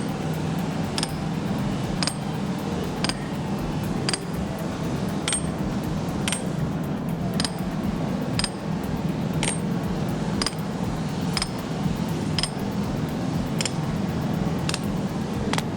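Light metal-on-metal clinks, about one a second in an even rhythm, each ringing briefly and high, over a steady low hum and rumble.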